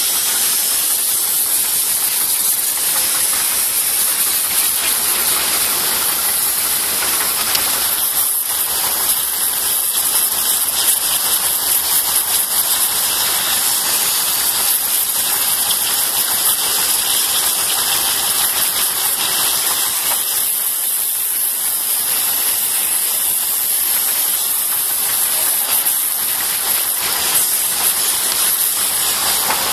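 A loud, steady hiss of outdoor ambient noise, brightest in the high range, with no distinct events in it.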